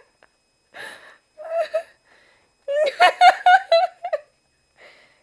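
A person laughing breathily in short, choppy bursts, with a wheezy gasp of breath about a second in.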